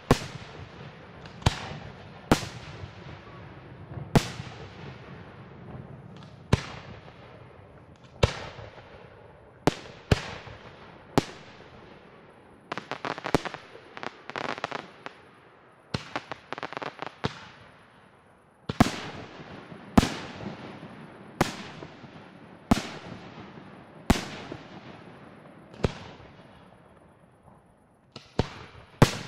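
Aerial firework shells bursting, one sharp bang after another every second or two, each trailing off in an echo. Around the middle the bangs come in quick clusters of crackling reports.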